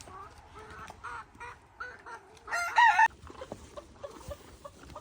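Poultry calling: a few short clucks, then one loud wavering call about two and a half seconds in.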